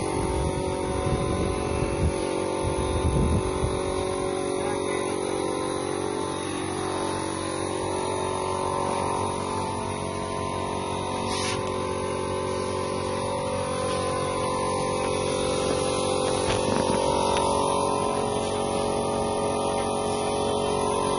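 Multi-crop threshing machine running steadily, its threshing drum spinning with a constant, even hum made up of several steady tones.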